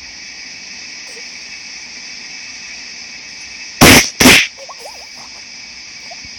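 Two loud, sharp bangs about half a second apart, over a steady high chorus of insects.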